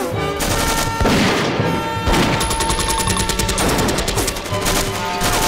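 Gunfire in a firefight: single shots and a fast burst of submachine-gun fire about two and a half seconds in, over a dramatic music score.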